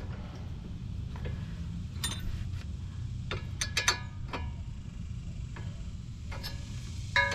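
A combination wrench and tongue-and-groove pliers clinking against a tie rod end's nut and stud in scattered sharp metallic ticks, with a quick run of them about halfway through, as the nut is worked loose while the pliers hold the stud. A steady low hum runs underneath.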